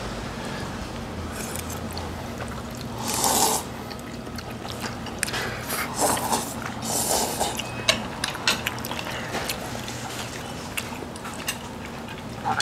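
Spicy noodles being slurped and eaten close to the microphone: two longer slurps about three and seven seconds in, with many short wet clicks of chewing and utensils in between.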